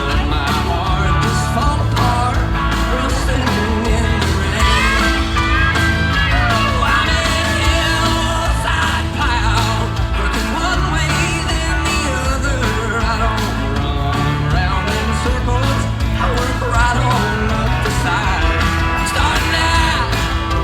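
Live band playing a country-rock song through a concert PA, with a male lead vocal singing over steady drums and bass.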